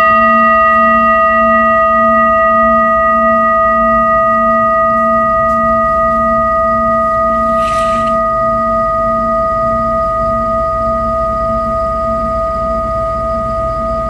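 Large metal singing bowl ringing out after a single strike: several steady, overlapping tones fading very slowly. The lowest tone wavers about twice a second. A brief soft rustle comes about eight seconds in.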